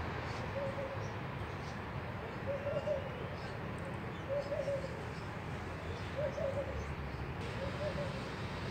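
A dove cooing in the background: a single short coo repeated five times, about every two seconds, over a steady background hiss.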